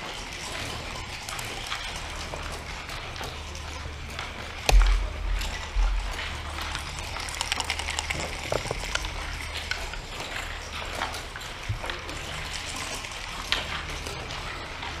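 Backgammon checkers and dice being handled on a wooden board: scattered light clicks, with a louder knock about five seconds in, over a low steady hum.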